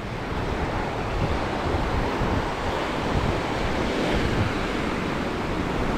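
Small sea waves breaking and washing up over the sand at the shoreline, a steady surf wash, with wind rumbling on the microphone.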